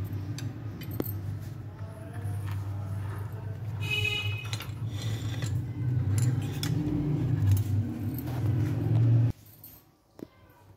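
Steel cutlery clinking and scraping against a plate and a glass dish, with one brief ringing clink about four seconds in, over a steady low hum. The hum and the clinking stop abruptly near the end.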